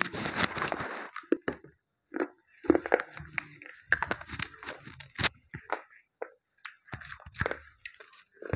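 Slate pencils being bitten and chewed: a long crunchy bite in the first second, then irregular crisp cracks and crunches as the pieces are chewed.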